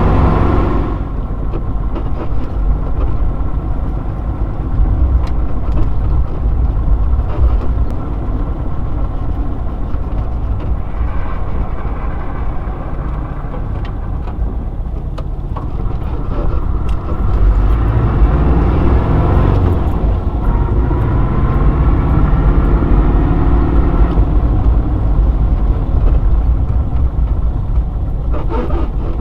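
1965 Porsche 356C's air-cooled flat-four engine running steadily under way, its pitch climbing about two-thirds of the way through as it revs up.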